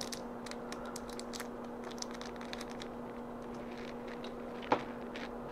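Fingernails picking and pinching at a clear plastic bookmark sleeve, making a run of small light crinkling clicks that is dense in the first couple of seconds and then thins out. A steady low hum runs underneath, and there is one brief sharp sound near the end.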